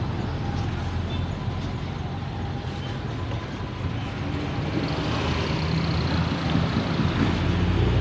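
Road traffic and vehicle engines running steadily, the rumble growing somewhat louder from about halfway as a vehicle draws closer.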